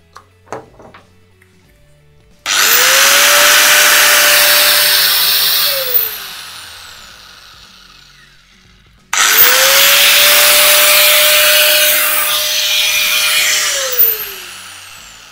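Sturm 9012T 125 mm angle grinder switched on twice and run with no load, as a test after reassembly. Each time the motor spins up quickly to a steady whine for about three and a half seconds, then is switched off and winds down with a falling whine. A few light handling clicks come just before the first run.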